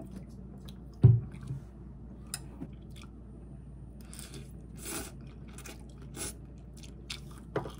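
A person eating instant cup noodles: chewing and small mouth sounds, with a single knock about a second in. Around the middle come a few short sips as broth is drunk straight from the cup.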